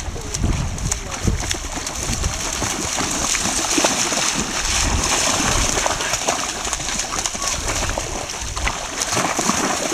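A border collie splashing as it runs and wades through shallow sea water, with a continual irregular patter of small splashes and sloshing.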